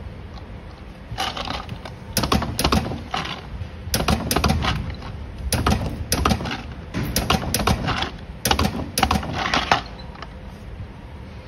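Battery spot welder firing weld after weld onto the metal strips of a lithium-ion cell pack, each weld a sharp snap, coming in about seven quick clusters over a steady low hum.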